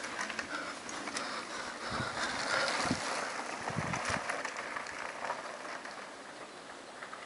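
Mountain bike passing close on a dirt-and-gravel trail, its tyres crunching. The noise is loudest two to three seconds in and fades as the rider pulls away.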